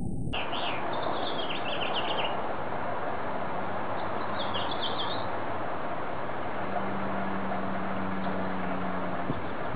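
Steady outdoor hiss with short, high bird chirps in two brief clusters, and a low steady hum for a few seconds near the end.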